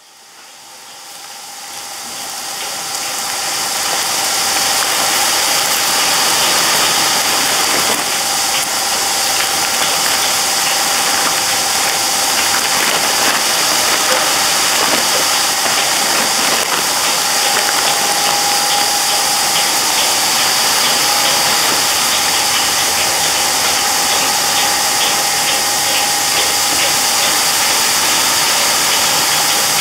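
Rotating konpeito pan machinery running steadily: a steady machine hum with a held whine and fine rattling ticks, fading in over the first few seconds.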